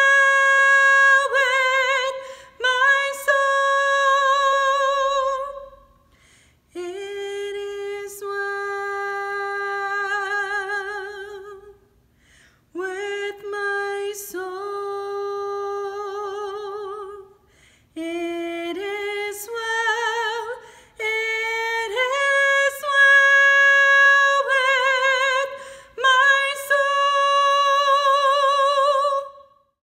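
A woman's voice singing alone without accompaniment, in slow phrases of long held notes with vibrato, breaking off briefly between phrases. The singing stops near the end.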